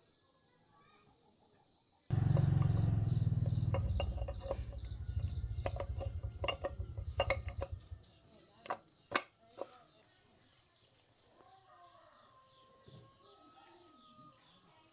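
Honda GX200 single-cylinder engine running with a low, pulsing exhaust note that starts suddenly, then slows and dies away over several seconds, its firing pulses spreading apart as it stops. Three sharp knocks follow.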